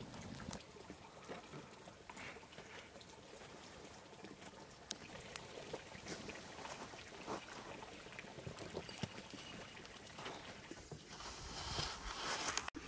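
Liquid pouring and trickling, with light scattered clicks and knocks.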